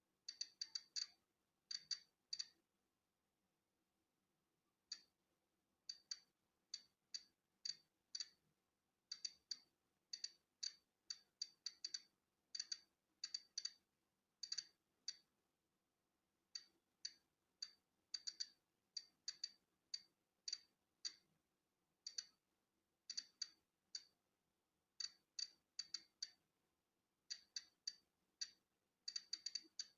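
Polon EKO-C digital Geiger counter clicking at random, irregular intervals, short high clicks about two a second on average, some bunched together and some spaced out. Each click is one detected count of natural background radiation.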